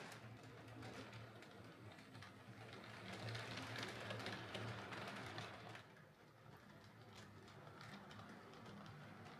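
OO-gauge Oxford Rail Dean Goods model steam locomotive running on track: a faint steady motor hum with light clicking from the wheels on the rails, a little louder for a few seconds mid-way.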